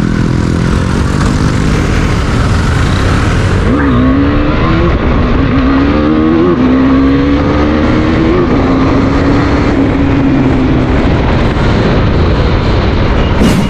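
Husqvarna Svartpilen 401's 373 cc single-cylinder engine accelerating through the gears: its pitch climbs and drops three times as he shifts up, then holds steady at cruising speed. A heavy rumble of wind and road noise runs underneath.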